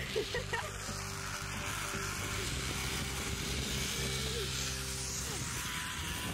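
A zipline trolley runs along a steel cable with a steady rushing whir over background music. Near the start a woman gives a short, excited shriek and laughs.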